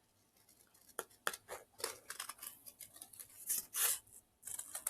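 Scissors snipping through folded paper in a run of short, irregular cuts, starting about a second in.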